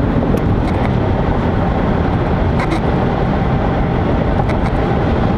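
Steady loud rushing noise of a car on the move, heaviest in the low range, with a few faint clicks.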